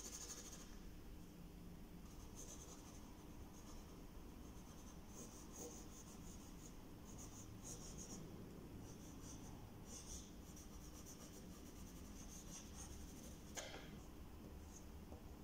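Pencil drawing on paper: quiet, scratchy strokes coming in short bursts with brief pauses between them.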